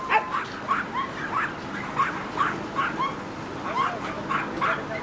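A dog barking over and over in short, sharp, high yaps, about two or three a second, without a break.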